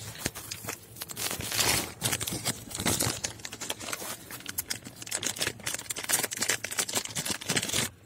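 Clear plastic packaging bag crinkling and rustling as it is handled and a part is pulled out of it, in a dense run of irregular crackles.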